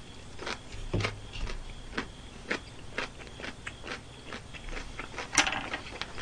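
A person chewing a mouthful of crunchy pickled radish, giving irregular crisp crunching clicks, several a second.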